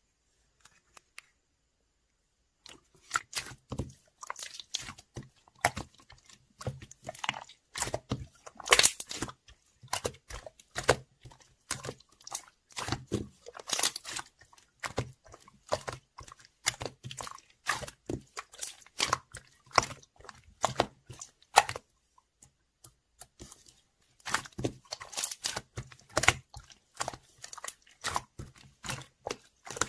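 A dense, irregular run of close-up clicks and crackles, starting about three seconds in, with a brief pause a little past two-thirds of the way through.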